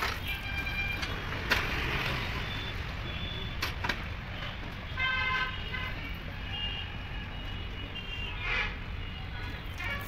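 Steady road-traffic rumble with short vehicle horn toots now and then, and a couple of sharp clicks.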